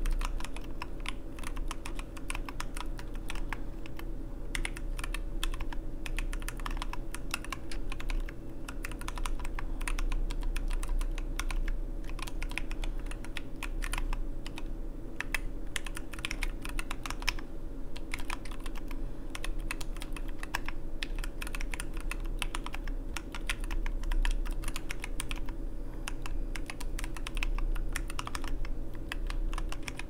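Continuous typing on a Niu Mini 40% aluminium mechanical keyboard fitted with lubed and filmed C³Equalz TKC Kiwi tactile switches and PBT keycaps: a dense, fast run of key clacks, with a few brief lulls.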